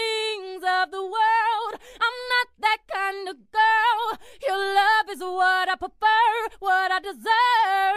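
A high-pitched voice singing a melody in short, broken phrases, the notes held and wavering.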